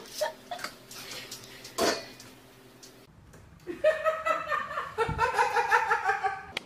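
A few faint clicks and one sharper knock, then from about four seconds in a person laughing, high-pitched and in quick repeated pulses.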